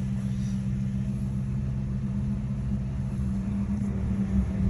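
2007 Ford Crown Victoria's 4.6-litre V8 idling steadily, heard from inside the cabin, without the rattle it made before: the rusted-off exhaust joint underneath is held shut by a temporary clamp.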